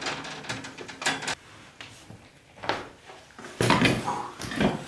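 Footsteps, knocks and scrapes of a person clambering over loose rubble and debris: a run of separate clatters and scuffs, loudest in the last second and a half.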